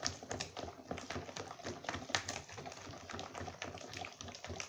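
Wire whisk beating a liquid cake batter in a plastic bowl: quick, irregular clicking and tapping of the wires against the bowl.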